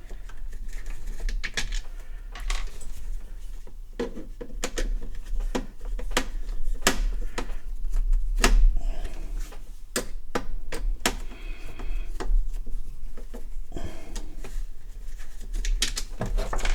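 Irregular clicks, taps and small knocks of a screwdriver, screws and plastic parts being handled while a Sinclair QL's case is unscrewed and taken apart, over a steady low hum.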